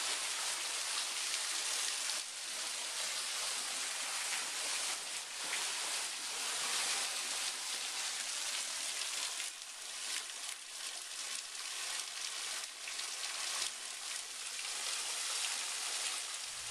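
Waterfall's water falling and splashing: a steady hiss with hardly any low rumble, heard close up from behind the falls.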